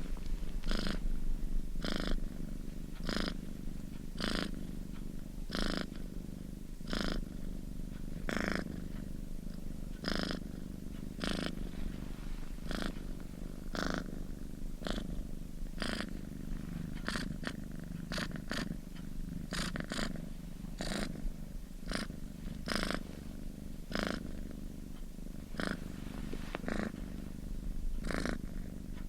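Domestic cat purring close up: a continuous low rumbling hum that swells in a steady rhythm about once a second.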